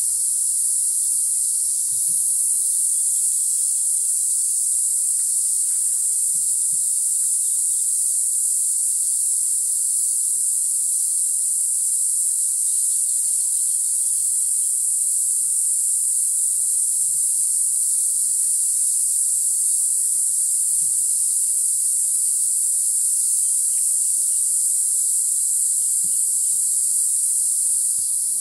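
Tropical jungle insect chorus: a steady, high-pitched drone that holds without a break.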